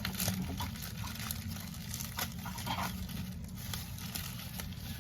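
Plastic packaging crinkling and rustling, with scattered light clicks, as a Funko Soda can's contents are opened and handled.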